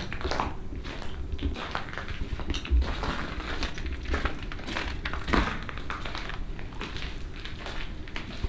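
Footsteps crunching over debris and decayed flooring, a run of irregular crunches and crackles with low thuds underfoot.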